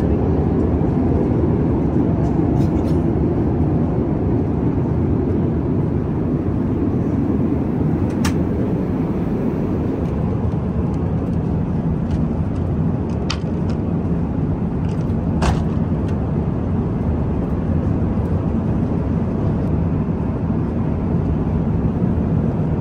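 Steady cabin noise of an Airbus A350-1000 airliner in flight: an even, low roar of airflow and engines, with a few light clicks from the cabin.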